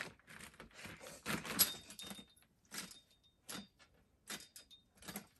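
Metal knocks and rattles from a freestanding home gymnastics bar as a child grabs and swings up onto it: several short clanks, the loudest about a second and a half in, some followed by a faint brief ring.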